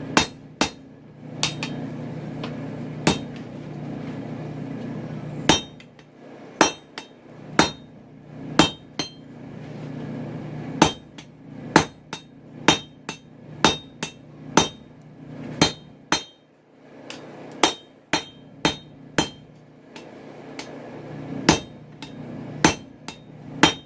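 Forging hammer striking hot chainsaw-bar steel on an anvil, hammering a step for a hidden tang over the anvil's edge and drawing the blade out. The blows are sharp and ringing, at an uneven pace of roughly one a second, with a steady low hum underneath.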